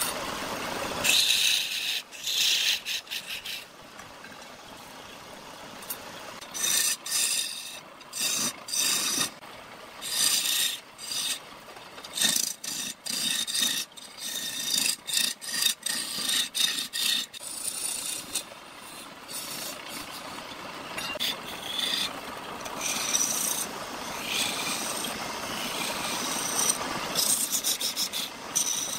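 Turning chisel cutting into a log spinning on a wood lathe: a long run of short scraping, hissing cuts, each about a second, with a steadier stretch of continuous cutting in the second half. The lathe's electric motor runs steadily underneath.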